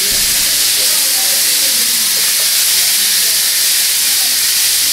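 Loud, steady hiss like static, with faint voices audible underneath.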